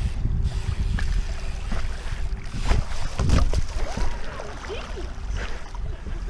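BMX bike riding through standing water on a flooded rooftop, with tyres splashing and wind rumbling on the microphone.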